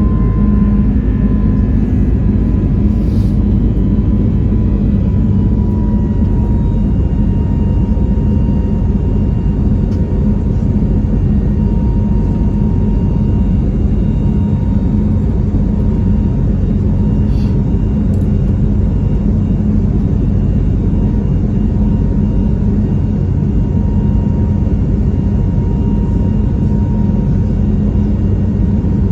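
Airbus A321neo's Pratt & Whitney PW1100G geared turbofan engines running at a steady high power, heard from inside the cabin as a loud, even rumble with a faint steady whine over it.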